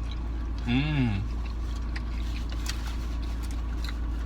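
A person's short 'mmm' of tasting, rising and falling in pitch about a second in, while chewing a sandwich with kettle chips in it, with a few faint crunches. A steady low rumble runs underneath.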